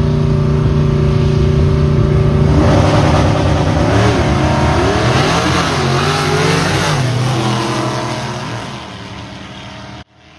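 Two drag-race cars, a 1950s Chevrolet gasser and a third-generation Camaro, running loud and steady at the start line, then launching about two and a half seconds in. Their engine notes climb and drop several times through the gear changes, then fade as the cars run away down the strip.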